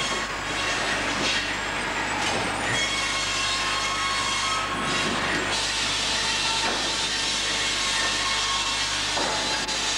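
Sawmill machinery running: a steady mechanical noise with hiss and a few light knocks.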